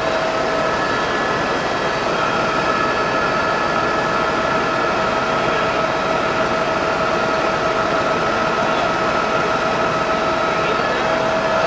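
Eurocopter helicopter in flight, heard inside the cabin: a steady rush of rotor and engine noise with a steady high whine over it.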